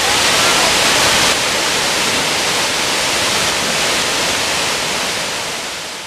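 Shiraito Falls, a wide curtain of many thin cascades, pouring onto rocks and into a pool: a steady rush of falling water. It drops a little about a second in and fades toward the end.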